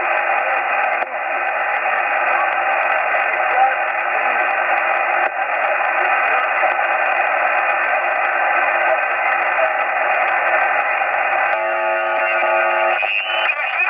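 Steady shortwave static hiss from a receiver in upper-sideband mode, cut off above about 3 kHz, with faint wavering traces in the noise. Near the end, several steady tones sound together for about a second.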